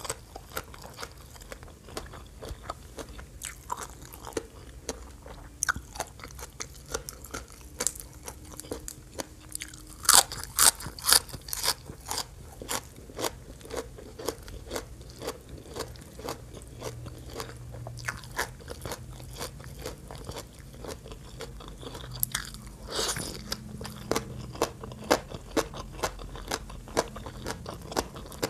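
Close-miked chewing and crunching of Thai green papaya salad (som tam), a steady run of wet, crisp crunches with louder bursts of crunching about a third of the way in and again past three-quarters.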